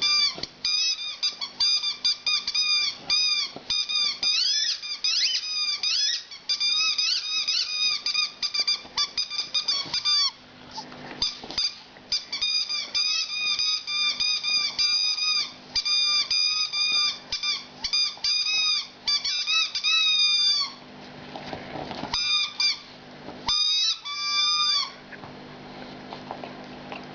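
Rubber squeaky toy squeaking over and over in quick runs of high, wavering squeals, with short pauses between runs. The squeaking stops near the end.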